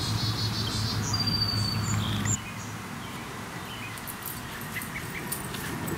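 Outdoor ambience of small birds chirping over a steady low hum. The hum and chirps cut off abruptly about two seconds in, leaving quieter open-air background with faint high ticks.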